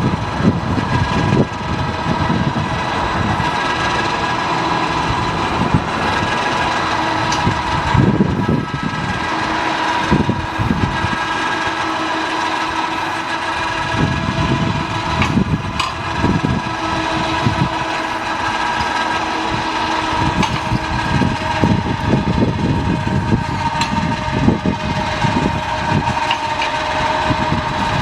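Engine-driven sawmill running steadily, with a constant high whine over an uneven low rumble and occasional knocks.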